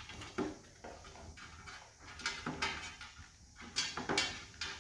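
Golden retriever eating dry kibble from an automatic pet feeder's tray: irregular crunching and chewing, with kibble clinking against the tray, the loudest crunches in the second half.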